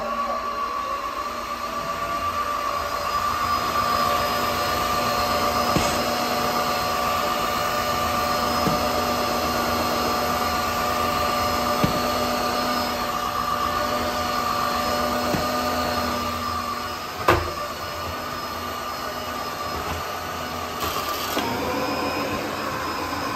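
Tineco Floor One S5 wet-dry vacuum mop running with a steady motor whine. A few small ticks are heard, and about three-quarters through there is one loud sharp clack, fitting a small wood chip and a screw being drawn into the head; the hum shifts in tone around then.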